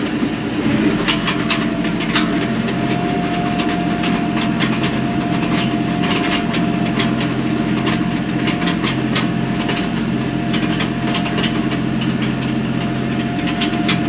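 Kioti NS6010 compact tractor running steadily under load, with a steady whine, as it pulls a chopper implement through standing cereal grain to crimp it. The implement rattles and clatters continuously and irregularly.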